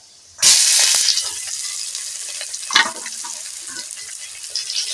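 Chopped onion hits hot oil in a metal karai and sizzles all at once, then keeps frying with a steady hiss. A metal spatula clanks against the pan about three seconds in.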